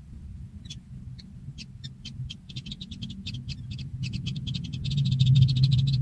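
Nestlings' begging calls: high ticking chirps, sparse at first, that quicken into a rapid continuous chatter and grow louder near the end, over a low rumble.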